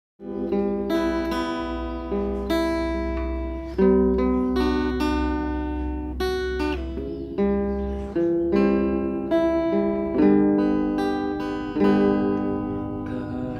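Acoustic guitar playing a slow song intro, a chord struck every second or so and left to ring.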